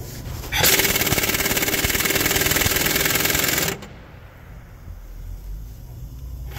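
Impact wrench hammering for about three seconds as it breaks loose a main bearing cap bolt on a Cat C15 diesel engine, then stopping.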